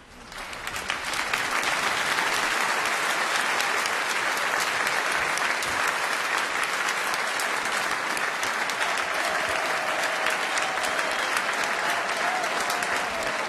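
A large audience applauding, the clapping swelling over the first second or so and then holding steady.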